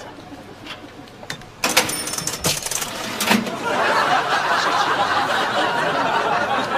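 Cash register being worked at a canteen till: key clicks and a sharp clatter with thin beeps, then, about four seconds in, a steady wash of crowd laughter and chatter.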